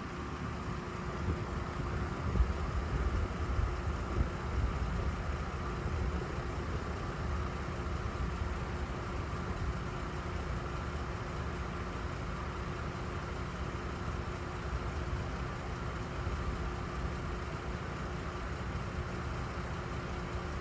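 Distant Piper PA-28 Cherokee's single piston engine and propeller droning steadily as the plane climbs away after takeoff. Under it runs a low rumble that swells in the first few seconds.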